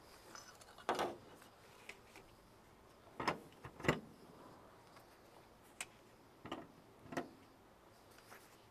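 Scattered light clunks and clacks of metal glad hands and air lines being handled and hung back onto their holders on the back of a truck cab, about six separate knocks, the loudest about a second in and again near four seconds.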